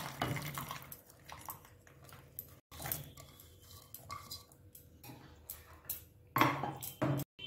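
Sweetcorn kernels poured from a plastic bowl into a steel pot of hot water, then scattered light clicks and taps of kernels and utensils against the pot, with a louder clatter near the end.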